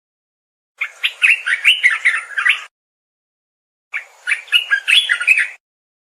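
Olive-winged bulbul (merbah belukar) singing two phrases of quick, warbling, up-and-down notes, each about two seconds long, with a pause between them.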